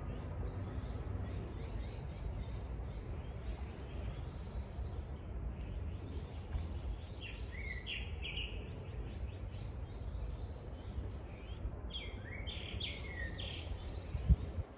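Wind rumbling on the microphone with small birds chirping, and two runs of louder, rapid chirping calls, one in the middle and one later. A single sharp thump near the end.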